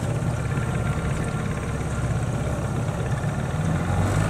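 Outboard motor on a small jon boat running steadily at low speed, an even engine hum.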